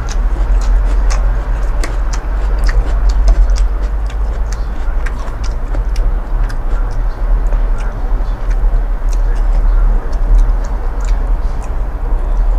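A person eating close to the microphone: chewing and mouth sounds with irregular sharp clicks several times a second, over a steady low rumble.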